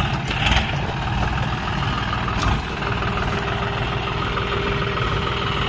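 Diesel tractor engines running steadily at idle: a John Deere 5050D close by, with a Sonalika tractor behind it. A brief knock about half a second in.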